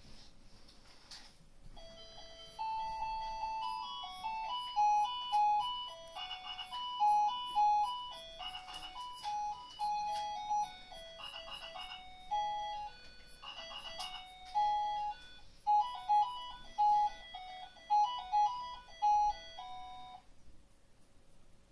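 A simple electronic tune of single beeping notes, like a child's musical toy or a ringtone, starts about two seconds in and stops shortly before the end.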